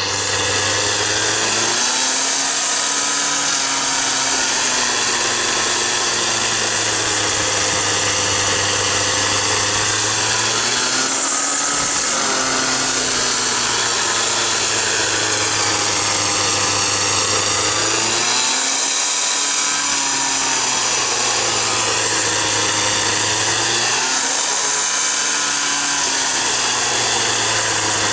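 Dyna Digger power shovel's small two-stroke engine running hard as its reciprocating blade cuts palm roots in the soil. The engine note swings up and down in pitch in slow arcs several times as the blade works.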